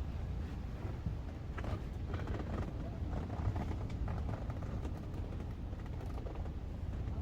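Wind buffeting the microphone, a steady low rumble, with scattered light clicks and rustles.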